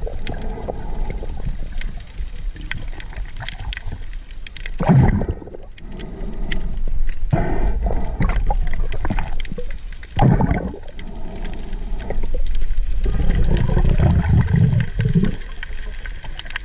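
Muffled underwater water noise picked up by a camera in the sea: a steady low rumble with gurgling, rushing surges every few seconds, the longest near the end.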